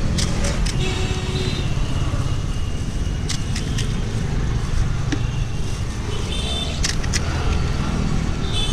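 Steady rumble of road traffic, with a few sharp crackling clicks in groups of two or three as crisp fried puris are cracked open by thumb.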